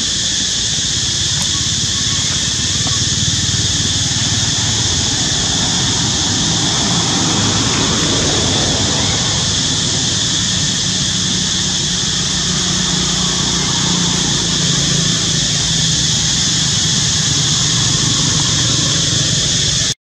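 Steady, loud, high-pitched drone of insects, with a low engine-like rumble underneath that swells and fades again in the middle.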